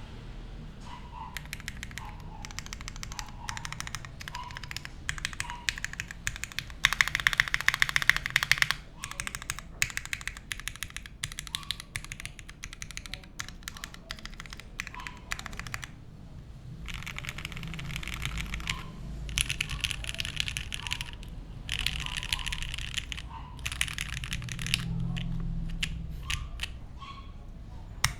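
Mechanical keyboard typing on a gasket-mounted Neo65 with lubed Gateron Mink linear switches on an aluminium plate and GMK keycaps. Keys are struck in quick runs separated by short pauses, the fastest and loudest run about seven to nine seconds in.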